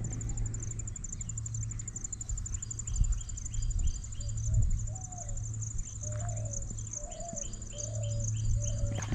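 Countryside ambience: insects trill steadily and high, and birds call in runs of short repeated notes, over a low steady rumble.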